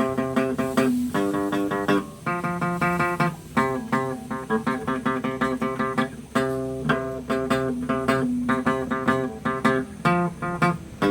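Guitar solo: a guitar playing chords and runs of plucked notes, several notes a second, in phrases with short breaks between them.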